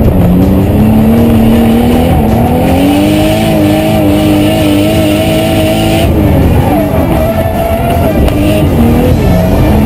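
Nissan Skyline R32's straight-six engine heard from inside the cabin, pulling hard under load. The revs climb over the first few seconds, hold steady, then drop about six seconds in and rise and fall after that.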